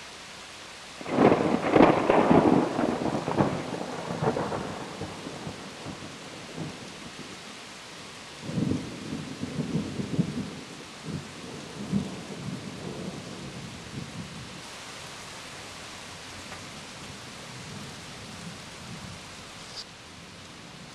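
Thunder from a nearby lightning strike: a loud crash about a second in that rumbles away over a few seconds, then a second, lower run of rumbles about eight seconds in. A steady hiss of heavy rain runs underneath.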